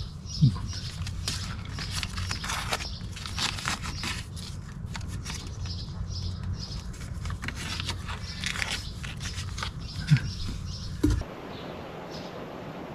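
Tape being pulled off a roll and torn, a run of short crackling rips over a steady low hum. About eleven seconds in, this gives way to wind noise on the microphone.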